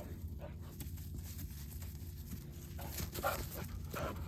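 Dog whining in a few short whimpers, clearest in the second half.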